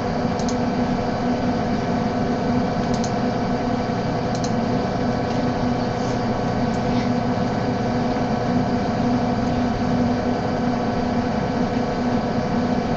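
Steady hum and hiss from a microphone set too loud, with a few faint mouse clicks scattered through it.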